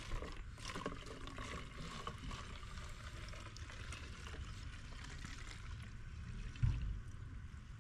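Petrol pouring from a plastic jerrycan into a plastic fuel-mixing bottle in a steady trickling stream, the first step of making a 2.5% two-stroke mix. A low thump about six and a half seconds in.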